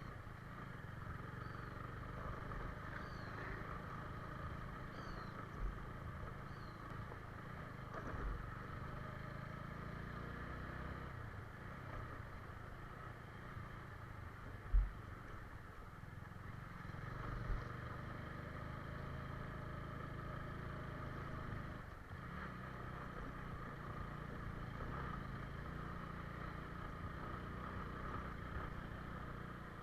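Steady engine and road noise of a moving vehicle, heard on board, with a few dull thumps, the loudest about halfway through, and a few faint high chirps in the first several seconds.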